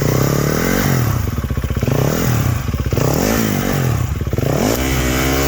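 Dirt bike engine revved hard in repeated bursts, its pitch rising and falling several times, with a longer climbing rev held near the end, as the bike is worked over a slippery log.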